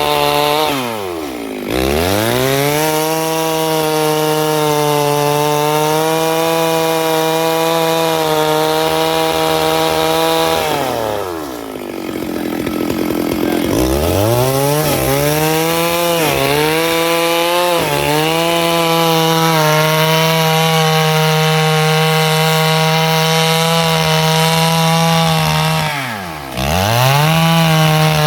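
Stihl MS 651 two-stroke chainsaw running at high revs while cutting wood. The engine drops toward idle and revs back up three times: about a second in, for a longer spell around the middle, and again near the end.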